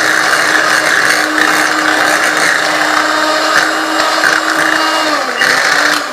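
Electric mixer running steadily as it beats a cheesecake filling of cream cheese, condensed milk and cream. Its pitch dips briefly near the end, then it is switched off.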